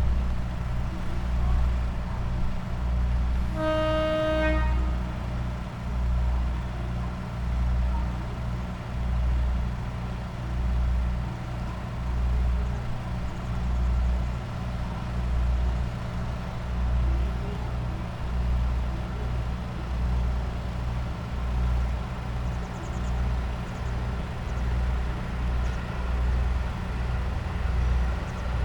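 Diesel train engine idling with a low, slowly throbbing hum. About three and a half seconds in, a short horn toot lasting about a second.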